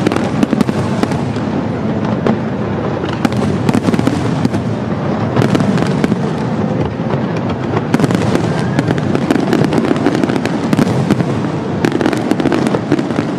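Large fireworks display in full swing: rapid, continuous bangs and crackling as shells burst one over another, with no pause.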